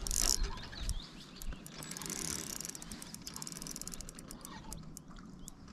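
Fishing reel clicking in a long, rapid ratchet run while a freshly hooked fish is being played, after a brief rustle of handling at the start.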